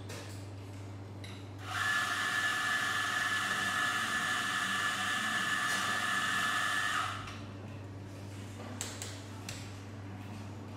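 Café espresso machine's steam wand frothing milk: a steady hiss with a thin whistle, starting about two seconds in and cutting off about five seconds later, over a low steady hum.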